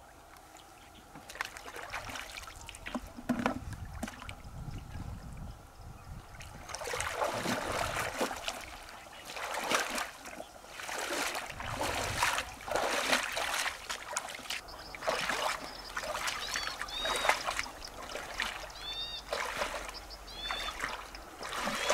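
Splashing and sloshing of a person wading through shallow river water in waders, with a splash at each step, roughly one a second.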